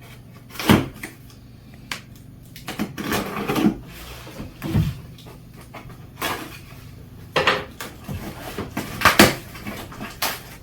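Irregular knocks, clunks and rustling as boxed electric-bike parts and their packaging are handled and moved about, with the loudest knocks just under a second in and about nine seconds in.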